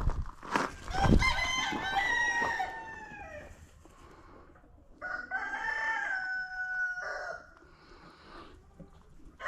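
A rooster crowing twice, each crow a long call of about two seconds, the first starting about a second in and the second about five seconds in. A few low thumps come near the start.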